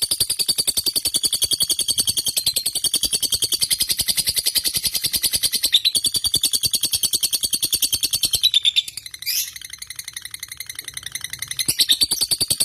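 Lovebird singing a long, rapid, chattering trill made of many quick notes. About nine seconds in the trill breaks off with a short squeak, then starts again near the end.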